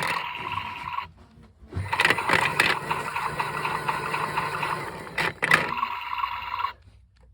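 Small battery-powered washing machine running on three batteries, its motor whirring steadily with clicks; it cuts out about a second in, starts again a moment later, and stops near the end.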